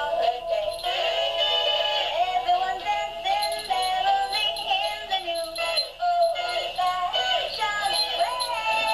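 Animated singing and dancing plush Christmas tree toy playing a Christmas song, a synthesized singing voice over a jingly tune.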